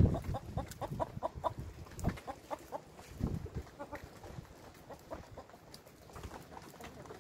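Chickens clucking in short repeated notes, a quick run of them in the first second and a half and scattered clucks after, with a couple of dull thumps in between.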